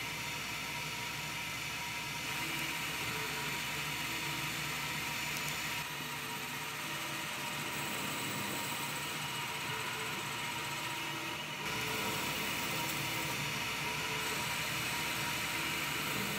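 Metal lathe running under cut, turning metal: a steady machine whir with cutting noise. The sound shifts abruptly in character three times, about two, six and twelve seconds in.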